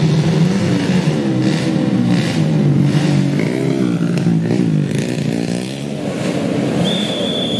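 Several dirt bike engines revving at once on a start line, their pitches rising and falling against each other. A short, high, steady tone sounds near the end.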